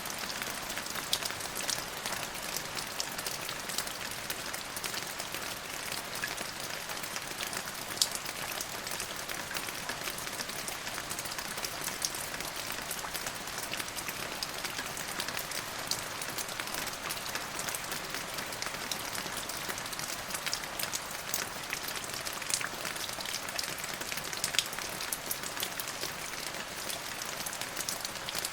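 Steady rain falling on a surface, an even hiss with many individual drops ticking and pattering through it.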